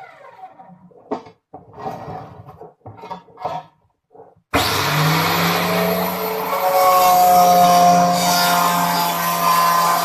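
Homemade benchtop metal cut-off saw built from an electric tile cutter. Its motor winds down with a falling whine, a few knocks and scrapes follow, then about four and a half seconds in it switches on abruptly and runs loudly with a steady hum.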